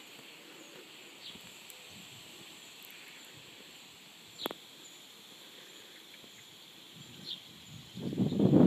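Quiet garden ambience with a few short, falling bird chirps: one about a second in, a sharper one halfway through and another near the end. In the last moments a loud, rough, irregular noise comes in over it.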